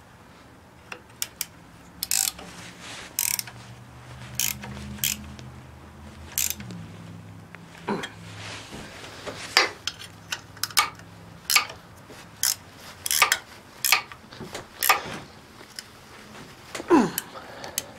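Wrenches tightening the hold-down clamp nuts on a milling machine table: a ratcheting wrench clicking, with irregular sharp metal clicks and clinks.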